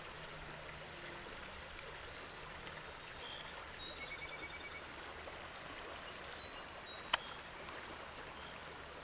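Steady rush of flowing river water, with a few faint high chirps through the middle and a single sharp click about seven seconds in.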